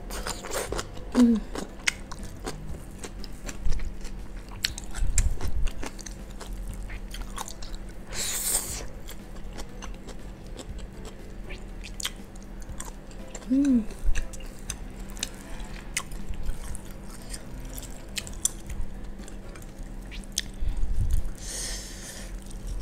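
Close-miked chewing of squid in sambal matah and greens: wet mouth sounds and many small clicks, with two short breathy hisses, one around eight seconds in and one near the end.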